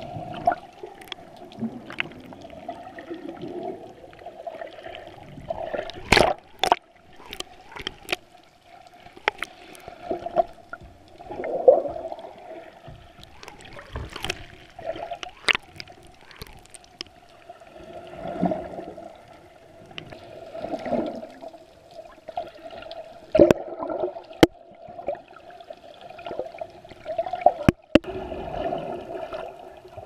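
Seawater surging and gurgling as heard by an underwater camera in its housing, muffled and sloshing, with scattered sharp clicks and knocks throughout.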